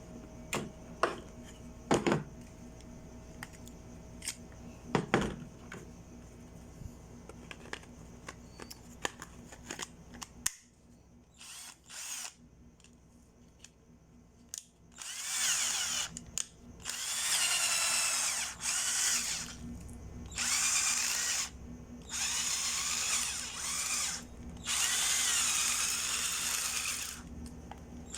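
Clicks and knocks of handling, then a 12-volt cordless drill driver's motor whirring in several bursts of a couple of seconds each, starting just past halfway, its pitch wavering slightly.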